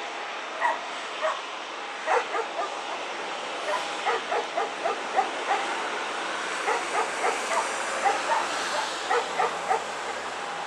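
A dog barking in quick, irregular strings of short barks and yips, over a steady rushing noise.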